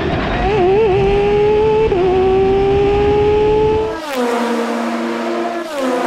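Race car engine heard onboard a GT car under acceleration, its pitch climbing steadily with a brief dip about two seconds in. At about four seconds it gives way to prototype race cars braking past, their engine pitch dropping twice in downshifts.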